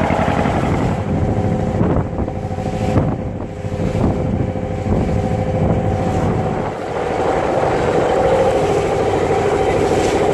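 Fishing dhoni's engine running steadily with the boat under way, a constant hum over the rush of wind and water.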